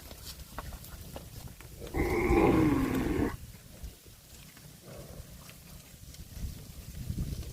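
A cow mooing once, a call of just over a second about two seconds in, dropping in pitch toward its end.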